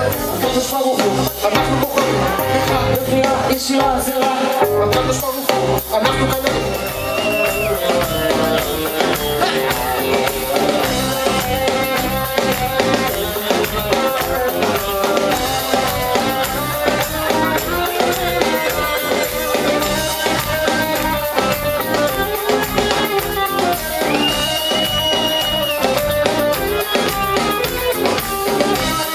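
Live band playing, with drum kit and electric guitars at a steady beat.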